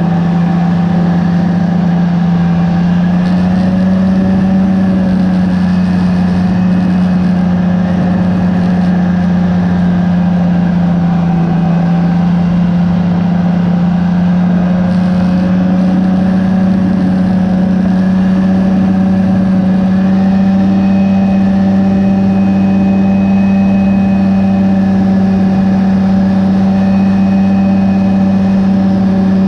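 Rotax 503 DCDI two-stroke twin engine of a Phantom X1 ultralight running steadily in flight. Its pitch rises slightly in the first few seconds, then holds.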